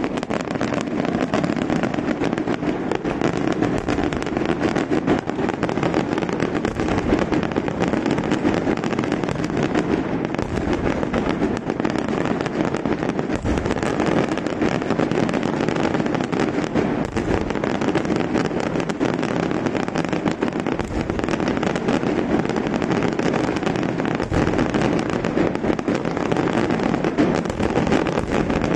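Daytime fireworks display: a dense, continuous barrage of crackling bangs, with heavier booms every few seconds.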